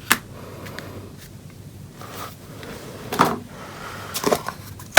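A few scattered small clicks and taps from a small USB connector and circuit board being handled and fitted together on a workbench. The loudest comes at the very end.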